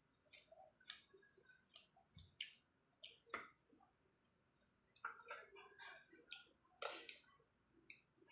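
Fork and spoon clinking and scraping on a ceramic plate while cutting and picking at grilled chicken and rice: faint, irregular taps, busiest about five to seven seconds in.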